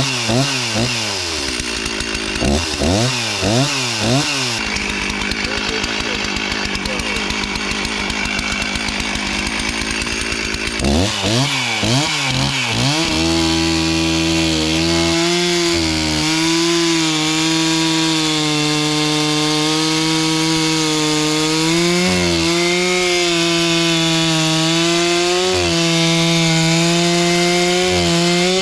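Two-stroke chainsaw revved up and down in quick throttle blips, then held at full throttle in a long cut through wood. The engine note holds steady and sags briefly a few times as the bar bites.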